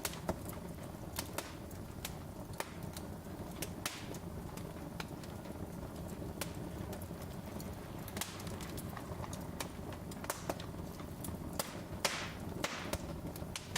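Wood fire crackling: irregular sharp pops and snaps over a steady low rumble of burning logs, with a slightly longer sputtering pop near the end.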